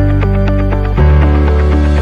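Background music: held bass notes under a regular pattern of short plucked notes, about four a second, with the bass moving to a new note about a second in.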